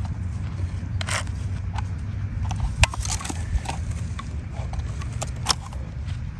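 Handling noise: a string of irregular clicks, scrapes and crackles over a low steady hum, with the small battery chainsaw stopped and not running.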